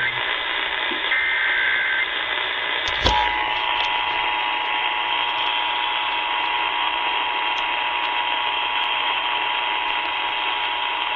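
Emergency Alert System test heard over broadcast radio: a second-long burst of warbling SAME header data tones, then a click about three seconds in, after which the steady two-tone EAS attention signal begins. Radio hiss runs under it all.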